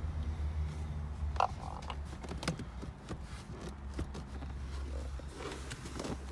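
Scattered light knocks and clicks from plastic console trim and wiring being handled, with a sharper knock about a second and a half in, over a steady low hum.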